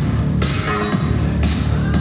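Music with a steady beat and a heavy bass line.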